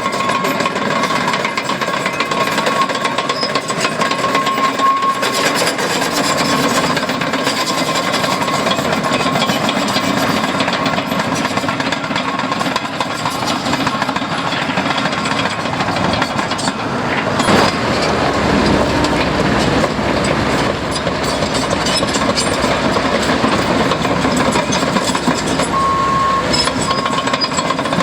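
Heavy construction machinery working: diesel engines running under a continuous rumble and rattle, with a thin high-pitched tone sounding on and off near the start and near the end.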